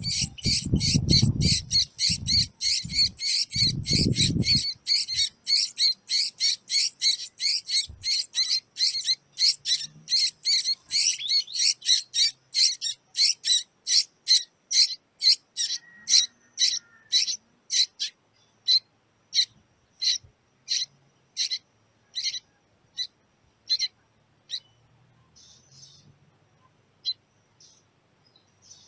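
Baby bird begging for food: a fast run of short, high chirps at about three a second, which slows and fades over the second half until it stops a few seconds before the end. A low rumble sits under the first few seconds.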